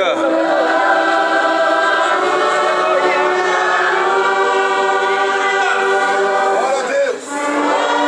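A congregation and choir sing a hymn together with a church orchestra of violins, saxophones, clarinets, brass and accordion. They hold long notes, with a short break between phrases about seven seconds in.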